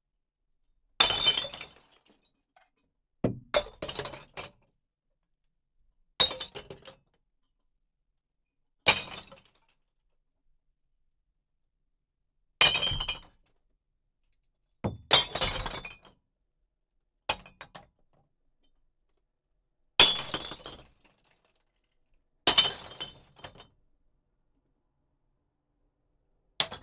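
Glass bottles dropped one at a time into a glass recycling bottle bank, each landing with a crash and clatter of breaking glass, heard from inside the bin. About a dozen drops come a few seconds apart, with silence between them.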